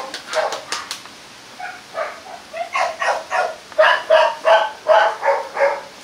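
Rottweiler puppies barking and yipping in play: a few scattered short barks, then a quick run of about nine short barks in the second half.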